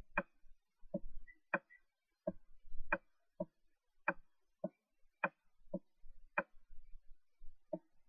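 A series of faint, sharp clicks, roughly one every half second, with a faint low rumble between some of them.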